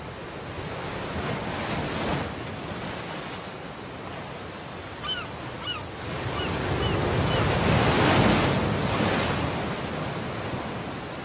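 Ocean surf breaking on a beach, two waves swelling and falling away, the second louder, peaking about two and eight seconds in. Around the middle, seabirds give about five short calls.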